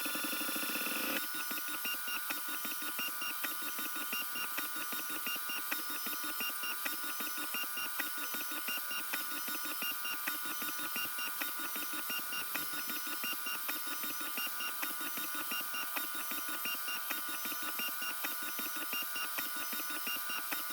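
XVICO X3S 3D printer printing, its stepper motors whining in several steady tones with a fast, regular pattern of short high chirps as the print head moves.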